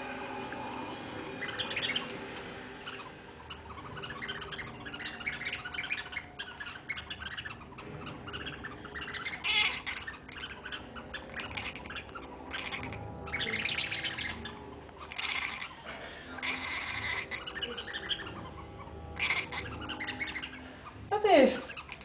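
Oriental shorthair cat chattering at prey: repeated short, bird-like chirps and clicks. Near the end comes one louder squeak falling in pitch.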